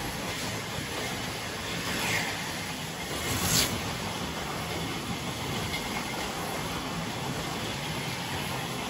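Carrera slot cars running on the track: a steady whir from their small electric motors and pickups on the rails. It swells briefly louder about three and a half seconds in.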